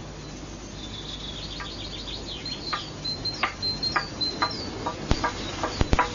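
Wooden semantron (simandron), a long plank beaten with a wooden mallet: single knocks from about a second and a half in, coming faster and closer together, the call to the monastery's liturgical service. High chirping runs through it.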